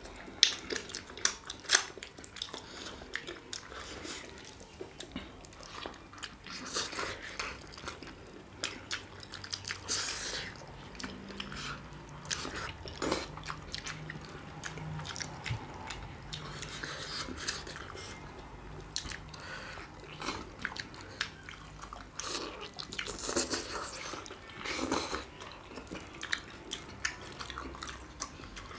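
Two people chewing and biting mouthfuls of chicken momo and black bean noodles eaten by hand, with irregular mouth clicks and smacks.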